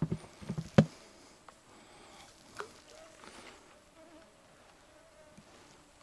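A flying insect buzzing close by, a faint wavering whine. A few handling knocks come at the start, with one loud thump just under a second in and another knock a little later.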